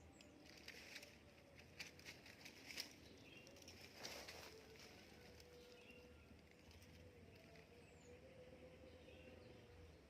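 Near silence: faint outdoor ambience with a few brief, high, falling bird chirps, some faint clicks in the first few seconds and a short rustle about four seconds in.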